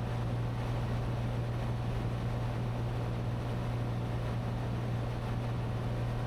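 Cessna 182T's six-cylinder Lycoming IO-540 engine and propeller droning steadily in cruise flight, heard inside the cockpit as a constant low hum with rushing air noise.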